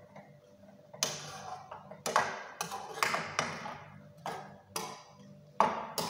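Long metal spoon knocking and scraping against the side of a pan while stirring a thick curry: about nine sharp, irregular taps, the loudest near the end.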